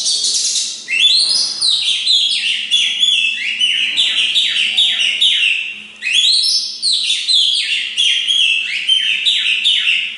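Oriental magpie-robin singing loud, rich song: two long phrases, each opening with a rising whistle and running into a quick string of downward-sliding whistled notes, several a second.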